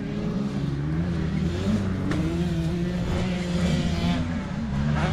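Dirt bike engine being ridden on a motocross track, its pitch rising and falling with the throttle.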